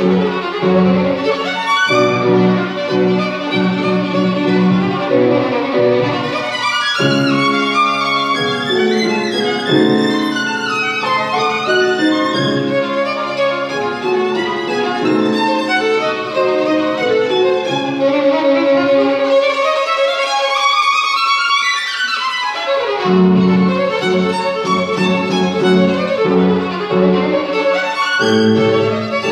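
Violin played with piano accompaniment, a continuous melodic passage with a climbing run of rising notes about two-thirds of the way through.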